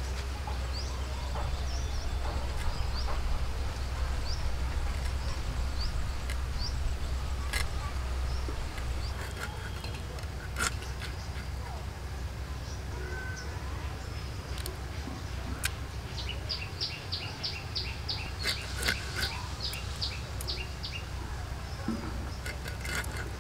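Birds chirping, with short high chirps scattered throughout and a quick run of repeated chirps about two-thirds of the way in, over a steady low rumble. A few sharp clicks stand out now and then.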